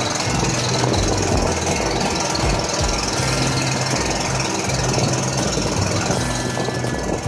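A small wooden passenger boat's motor running steadily under way, with the rush of wind and water past the hull.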